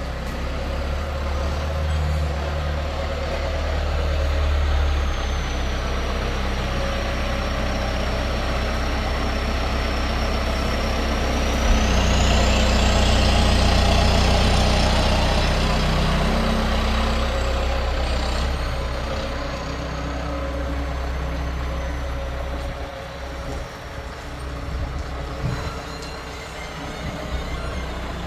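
John Deere 6330 tractor's diesel engine working hard, with a high turbocharger whistle over the engine's rumble. About twelve seconds in, the engine gets louder and the whistle rises in pitch, then both ease back down a few seconds later.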